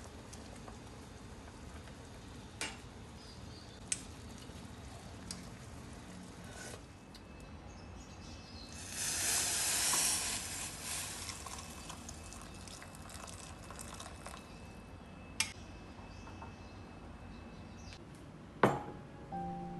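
Soup bubbling in a small saucepan, with a few light clicks. About nine seconds in, hot soup is poured from the pan into a bowl in a loud rush lasting two seconds or so. Near the end there is one sharp knock as the bowl is set down.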